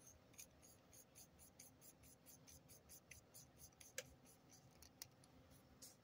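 Faint, rapid scratchy ticking, about four or five a second, as an ebonite fountain pen's nib section is twisted along the threads of its barrel, followed by a few sharper single clicks about four and five seconds in.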